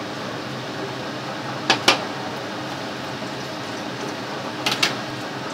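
A metal pan set down on a gas stove's grate with two quick clacks, then about three seconds later two quick clicks as the plastic lid is taken off a can, over a steady background hiss.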